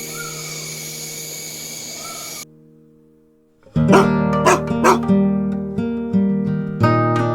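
Acoustic guitar background music with a dog barking over it: the music cuts off about two and a half seconds in, leaving a second of near silence, then resumes with several sharp barks in quick succession.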